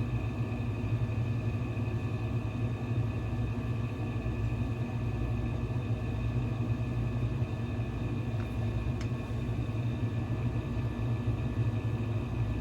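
Steady low background rumble with a faint, even high hum over it, and one faint tick about nine seconds in.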